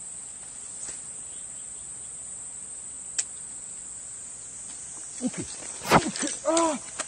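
Crickets or other insects trilling steadily and high-pitched. Near the end come a sharp click and a man's short wordless exclamations.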